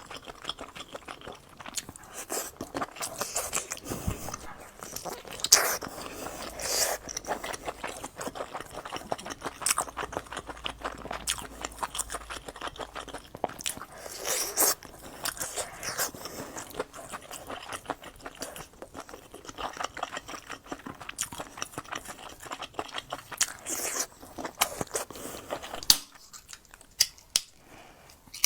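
Close-miked chewing and biting of grilled sausages: many sharp bites through the skin mixed with wet chewing, going quieter over the last couple of seconds.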